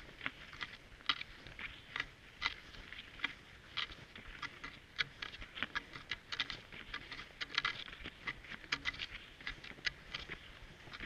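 Cross-country skis and poles on snow: an irregular run of crisp clicks and crunches, several a second, as poles plant and skis stride.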